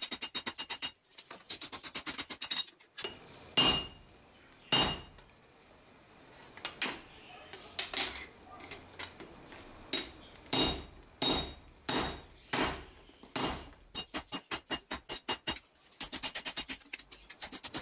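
Hand hammer forging a hot steel knife blank on an anvil: quick runs of about six blows a second at the start and near the end, with slower, single, heavier blows in between, each strike leaving a high metallic ring.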